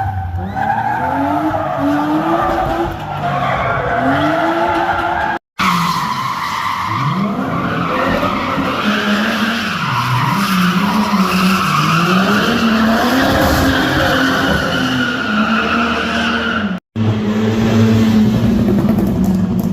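Car engines revving up and down hard while tyres squeal in long skids, typical of drifting or burnouts. The sound is cut off abruptly twice.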